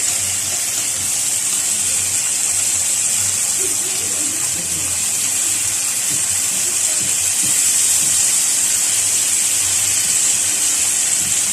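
Food sizzling as it fries in hot oil in a pan, a steady dense hiss browning the food.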